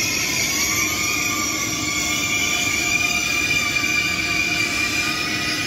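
ICE 3 high-speed train rolling slowly through the station with its wheels squealing on the rails: several high whistling tones held over the low rumble of the cars, the tones drifting slightly in pitch.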